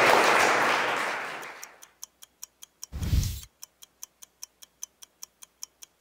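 Audience applause fading away over the first two seconds. It is followed by a steady, even ticking of about five ticks a second, broken once about three seconds in by a short low thud.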